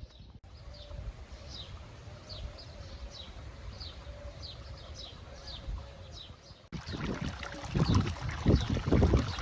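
A bird calling over and over in short, high, falling chirps, about two a second. About two-thirds of the way through, the sound cuts to loud wind buffeting the microphone.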